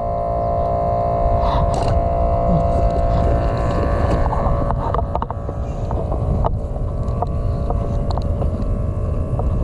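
A boat engine running with a steady drone and low rumble, with wind on the microphone and a few light clicks.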